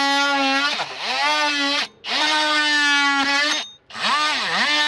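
A handheld power tool's motor whining at steady speed, bogging down in pitch under load twice and spinning back up, as it cuts protruding plastic trim flush. The sound stops abruptly twice, with short gaps before it starts again.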